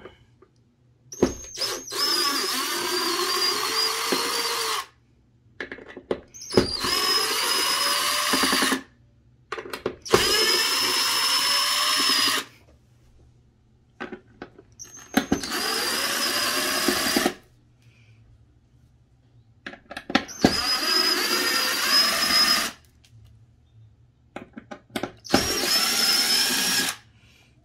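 DeWalt 18V cordless driver backing out screws in six separate runs of a few seconds each. The motor whine rises as it spins up and cuts off at the end of each run, with small clicks in the pauses between.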